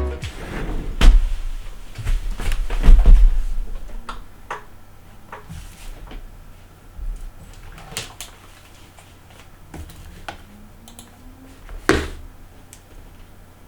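Irregular clicks and knocks from handling mechanical keyboard parts, with heavier thumps in the first three seconds and sparser, lighter clicks after that.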